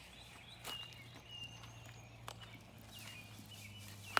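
Outdoor yard ambience: small birds chirping faintly over a steady low hum, with a few soft taps and one sharp click at the very end.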